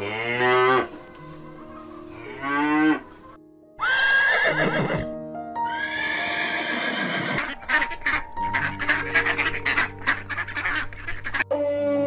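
A cow mooing, a few separate calls, over light background music. About halfway through comes a horse's whinny, a long shaky call.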